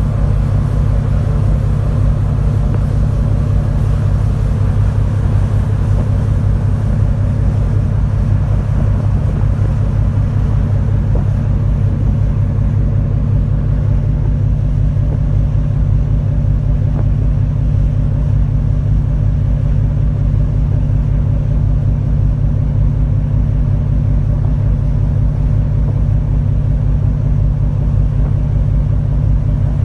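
A ferry's diesel engines running steadily under way, a deep, even hum and rumble with no change in pace.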